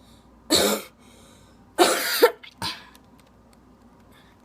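A person giving three forced coughs, the middle one the longest. The staged coughs cover bringing palmed playing cards to the mouth in a 'cough up cards' magic trick.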